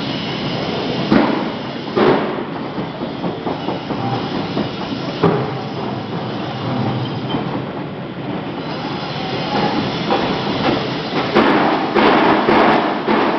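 Machinery running with a steady clatter, a few sharp knocks standing out, and a louder, busier stretch near the end.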